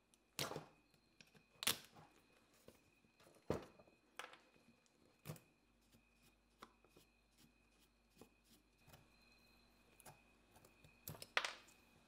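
Scattered sharp clicks and light knocks of tools and drill parts being handled on a workbench, irregular and a second or more apart, with the loudest near the start and near the end.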